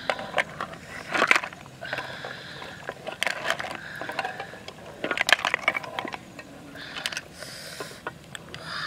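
Hard snail shells clattering and clicking against one another as the cooked snails are shifted in a woven basket, in several bunched bursts of clicks.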